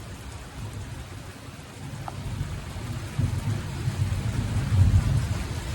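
Heavy rain falling steadily, with a low rumble that swells a couple of seconds in and surges twice.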